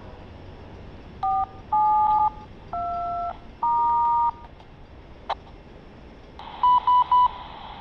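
Four touch-tone (DTMF) dialing tones come over a radio, each a steady two-note beep of about half a second. A sharp click follows, then a burst of radio hiss with three quick beeps near the end.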